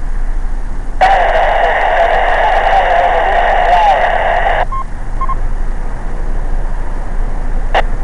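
A two-metre FM amateur radio transmission through the radio's speaker: a noisy, hard-to-make-out voice report that starts abruptly about a second in and cuts off sharply after three and a half seconds, followed by two short beeps.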